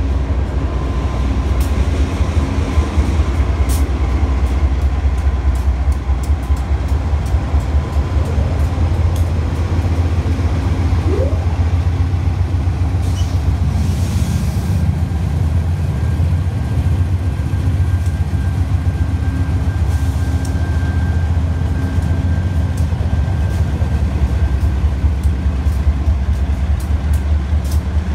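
A lash-up of five diesel freight locomotives passing close by, a heavy, steady low engine rumble with many sharp clicks over it.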